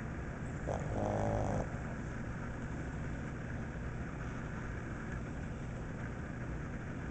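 Pug snoring: one loud, pitched snore about a second in, lasting just under a second, over a steady low hum.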